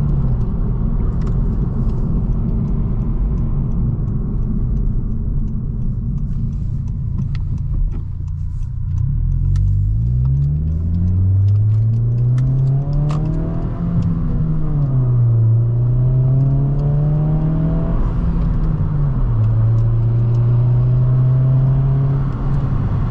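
Honda Civic Si's turbocharged four-cylinder engine and exhaust heard from inside the cabin. It cruises at a steady low hum, then about nine seconds in the revs climb, drop back, climb again and drop once more, and it settles into a steady drone near the end.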